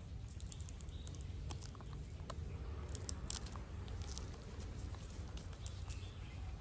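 Baby macaque licking and chewing on a lollipop, a scatter of faint wet mouth clicks and smacks over a steady low rumble.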